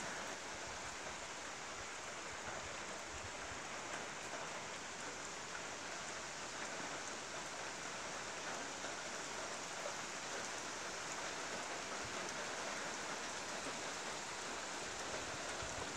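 Rain pouring down steadily on garden trees and grass: an even, unbroken hiss of downpour.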